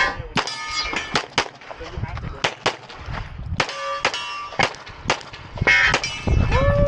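Rapid pistol fire from a CZ Shadow 2 in uneven strings of two to four shots with short pauses, with steel targets ringing after hits. Near the end a ringing tone slowly falls in pitch.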